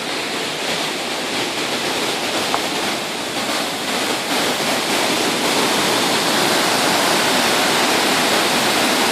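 Waterfall pouring steadily, a loud, even rush of falling water that grows a little louder about halfway through.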